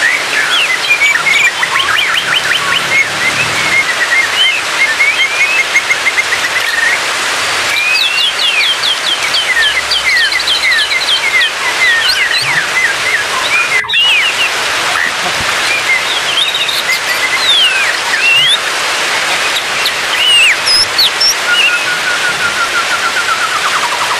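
White-rumped shama song: a steady stream of rapid whistles, chirps and quick trills, over a continuous rushing hiss.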